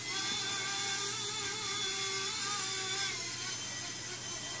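Blade mSR X micro RC helicopter in flight, its small electric motors and rotors giving a steady buzz like a bumblebee, made of several high tones that waver slightly in pitch.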